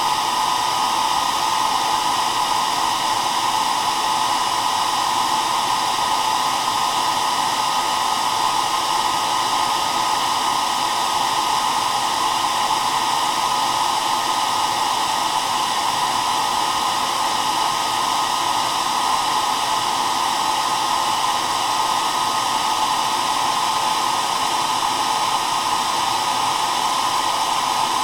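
Hair dryer running steadily with an even, unchanging rushing whir, strongest in the middle register.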